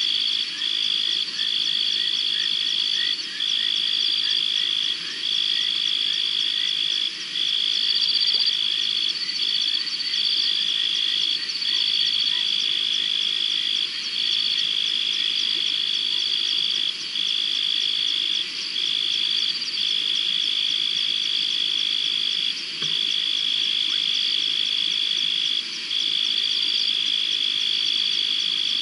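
Night chorus of frogs and insects: a continuous shrill trill with short breaks every few seconds, layered with a second high whirring and scattered short chirps.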